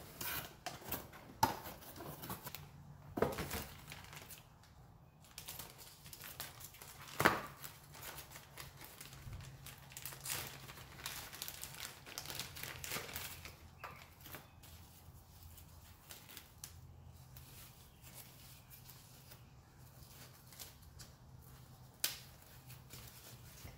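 Cardboard parts box opened by hand, then a plastic bag and paper wrapping crinkled and torn open to unwrap a new connecting rod, with a few sharp knocks, the loudest about seven seconds in.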